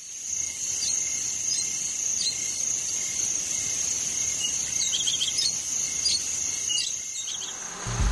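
Nature ambience: a steady high cricket trill with short bird chirps scattered over it, fading in at the start.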